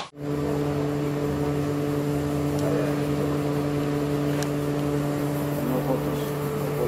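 Steady low electrical hum of a running appliance, one even drone with a couple of higher overtones that doesn't change.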